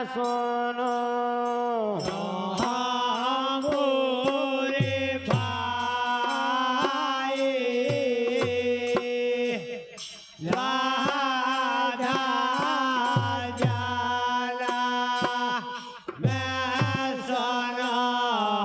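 Devotional bhajan music: held, chant-like male singing over sustained melodic notes, kept in time by the regular jingling clicks of wooden kartal clappers. The music drops out briefly about ten seconds in and again near sixteen seconds.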